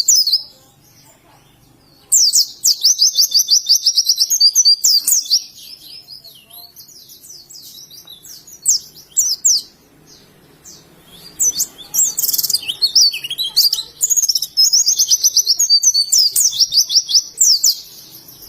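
White-eye (pleci) singing. Its song comes in long runs of rapid, high twittering notes, each run lasting a few seconds. The first run starts about two seconds in, and a longer one follows near the end, with softer, scattered chirps in the gaps between.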